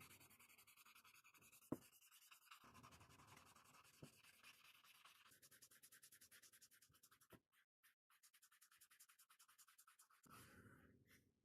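Fast, even back-and-forth rubbing strokes of hand abrasive work on the hammer, such as sanding, broken by a few sharp knocks about two seconds in and again near four and seven seconds.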